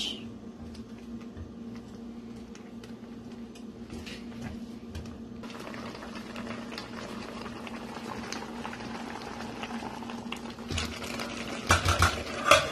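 Thick blended vegetable-and-chili sauce bubbling as it simmers in a stainless steel saucepan, the bubbling growing denser about halfway through. Near the end, a few loud clanks as a metal lid is set onto the pot.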